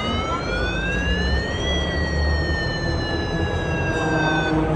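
A siren wailing: one slow rise in pitch for nearly two seconds, then a slower fall that cuts off near the end, over a low background rumble.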